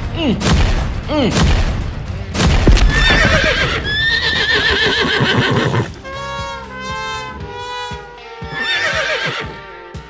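Several heavy thumps in the first three seconds, then horses whinnying repeatedly, over background music.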